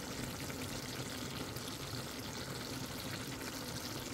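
Bean and eggplant curry simmering and sizzling in a frying pan, a steady faint hiss.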